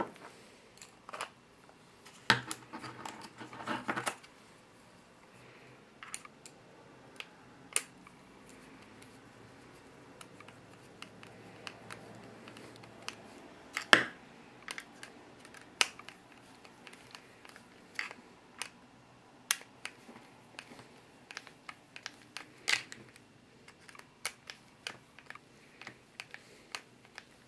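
Scattered clicks and light knocks of hard plastic parts of an RC rock crawler's front axle and differential housing being handled and fitted together by hand. There is a quick run of clicks between about two and four seconds in, and the sharpest click comes about fourteen seconds in.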